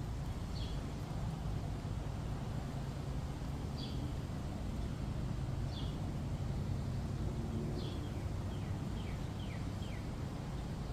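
A small bird chirping: short, high, falling chirps about every two seconds, then a quick run of four or five near the end, over a steady low hum.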